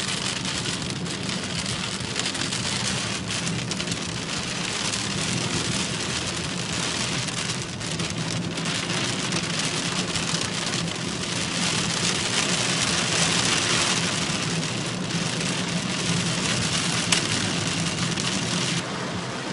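Heavy rain pelting a car's roof and windscreen, heard from inside the cabin, with a low engine hum underneath. The rain noise thins abruptly near the end.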